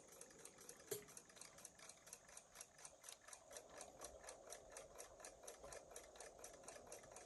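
Faint, rapid, even ticking of a mechanical wind-up alarm clock, with one sharper click about a second in.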